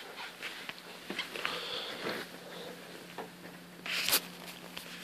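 Handling noise from a handheld device being moved about: light rustles and scattered small clicks over a faint steady hum, with one short sniff about four seconds in.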